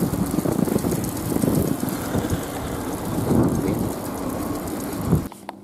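Wind buffeting the microphone of a camera riding along on a moving bicycle: a loud, rough, uneven rumble. It cuts off suddenly near the end.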